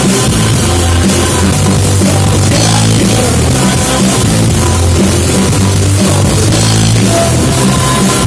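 Rock band playing live, loud and steady, with drum kit, bass and guitar and no singing.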